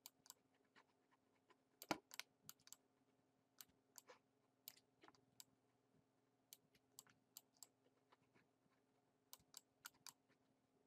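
Faint, irregular clicks of a computer mouse and keyboard, some in quick clusters, the loudest about two seconds in, over a low steady hum.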